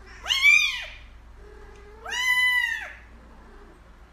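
A kitten meowing twice in high calls that rise and then fall in pitch: a short one just after the start and a longer one about two seconds in.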